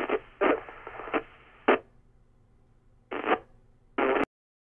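FM radio receiver audio from the International Space Station's crossband repeater downlink: a few short, clipped fragments of voice and static with quiet gaps between them. The sound cuts off abruptly a little past four seconds in.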